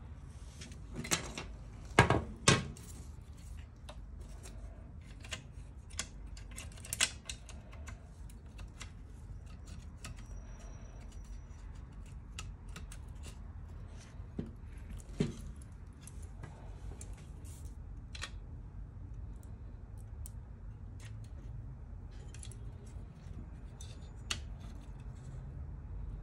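Plastic and metal parts of a laser printer fuser unit handled and fitted by hand: scattered clicks, taps and small rattles, with sharper knocks about two seconds in, near seven seconds and in the middle, over a low steady hum.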